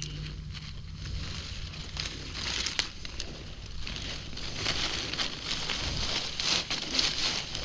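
Dry leaf litter and twigs crackling and rustling as a gloved hand and feet push through forest-floor undergrowth. The crackling is irregular and gets busier after the first couple of seconds.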